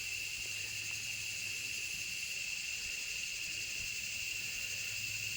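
Rainforest insects calling in a steady, unbroken chorus, with one high, even tone standing out above a shrill hiss.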